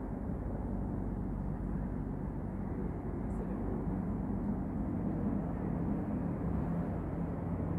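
Steady low background rumble with a faint even hum and no distinct events, like distant engine or traffic noise.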